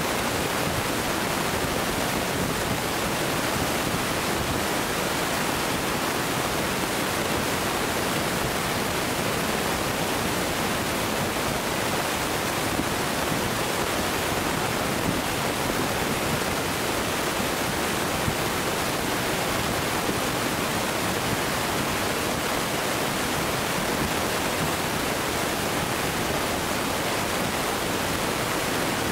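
Steady, even rushing noise with no firework bursts.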